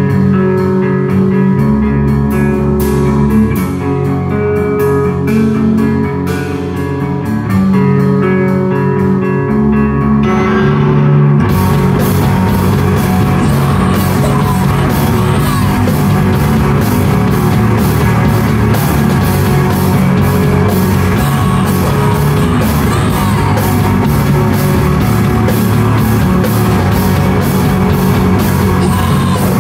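Live rock band playing loudly: guitar and bass notes ring out for about ten seconds, then the drums and full band crash in with yelled singing over heavy, distorted guitars.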